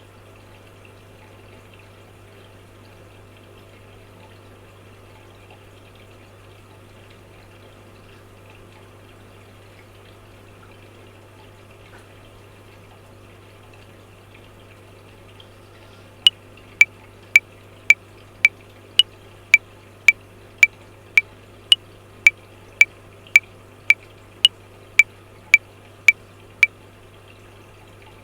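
Washing machine running with a steady hum and the noise of water. About 16 seconds in, a metronome clicks 20 times at 110 beats per minute, four bars of 5/4, then stops.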